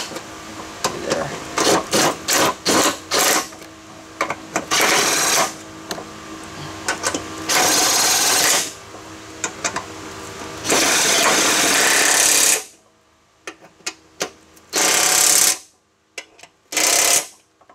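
Makita 18V brushless cordless impact driver, set to slow, running a new mower-deck spindle's mounting bolts in. First a string of quick trigger blips, then several runs of rapid hammering, a second or two each, with pauses between.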